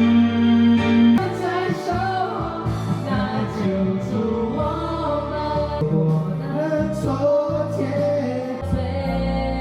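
Music with a singing voice over an instrumental backing; the sung melody comes in about a second in.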